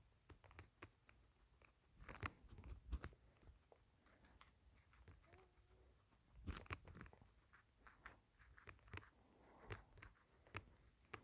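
A pet crunching and chewing a raw carrot in many short, faint bites, with louder clusters of crunches about two seconds in and again about six and a half seconds in.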